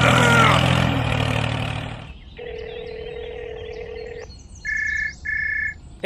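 Tractor engine sound effect running steadily, with a brief squeaky glide over it at the start, fading out about two seconds in. Then a telephone dial tone for about two seconds, followed by two short high beeps of a call ringing through.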